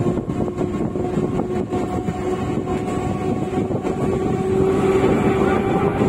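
Freight train of open goods wagons rolling past, its wheels running on the rails with a steady rumble. From about four and a half seconds in, a steady droning tone grows louder over the rumble.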